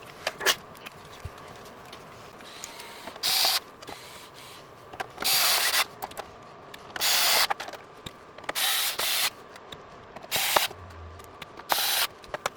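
Six short bursts of hissing, each under a second long and spaced one to two seconds apart, with scattered sharp clicks in between.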